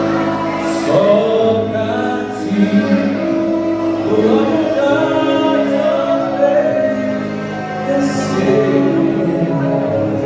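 Vocal group singing a Portuguese gospel worship song, with long held notes.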